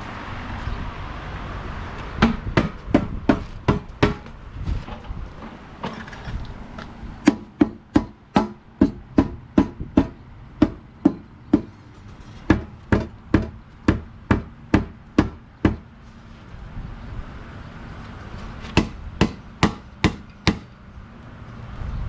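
A hammer striking a part on a 225 Slant Six engine to break it loose, in four runs of sharp blows at about three a second, with pauses between the runs.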